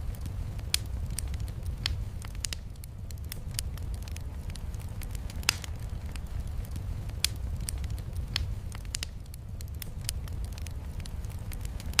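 Log fire crackling, with irregular sharp pops and snaps, the strongest about five and seven seconds in, over a steady low rush of rain.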